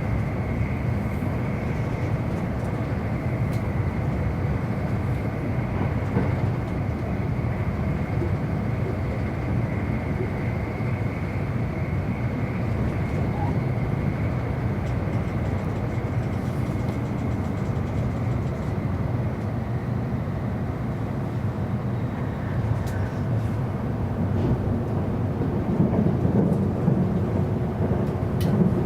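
E259 series Narita Express electric train running at speed, heard from on board: a steady rumble of wheels on rails with a thin, steady high whine over it. The rumble grows louder and rougher in the last few seconds.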